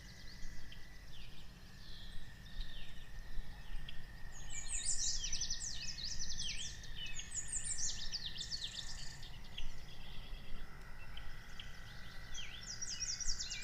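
Birdsong ambience: many small birds chirping and twittering in quick overlapping phrases, over a steady thin high tone and a low rumble.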